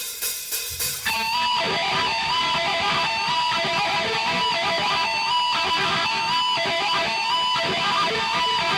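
Guitar music, strummed. A sparse opening gives way to a fuller, steady part about a second in.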